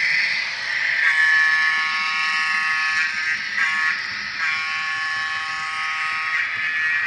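The N scale SW7 diesel switcher's sound decoder sounds its air horn through the locomotive's tiny speaker: two long chord blasts with a brief note between them, over the steady diesel engine sound.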